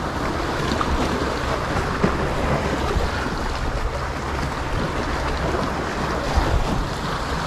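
Sea surf with wind buffeting the microphone, heard as a steady low rumble under an even hiss.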